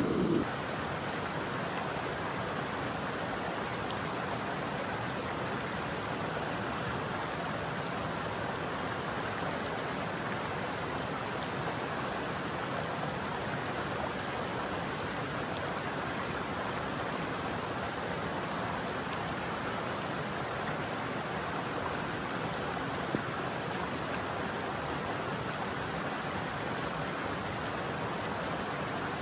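Steady, even rush of a flowing creek, mixed with rain falling.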